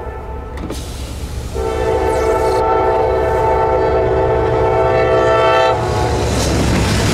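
Air horn of a Norfolk Southern SD70M lead locomotive blowing for a grade crossing, one long chord held for about four seconds. It cuts off near the end, giving way to the rumble of the freight train passing.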